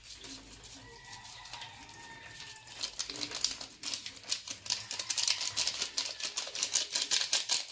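A packet of Maggi all-purpose seasoning being shaken and tapped over a basin of raw fish: a quick crinkly patter of many small ticks. It gets busier and louder from about three seconds in.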